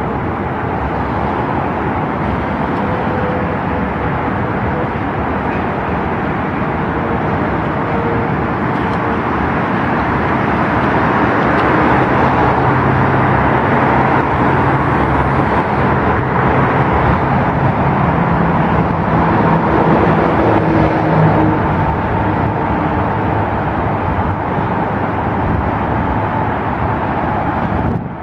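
A Class 399 tram-train creeping slowly along the track under a steady, loud rumble of traffic. Faint steady hums come and go in the middle as the noise swells a little.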